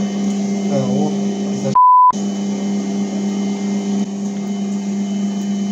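Metal Master MML 2870MV bench lathe running free with its spindle set to about 300 rpm, a steady motor and gear hum with no cutting yet. About two seconds in, a short pure electronic bleep, edited in, covers all other sound for about a third of a second.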